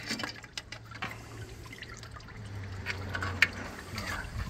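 Diesel fuel splashing and dripping in a tractor's hydraulic sump as it is rinsed out by hand, with scattered small knocks over a low steady hum.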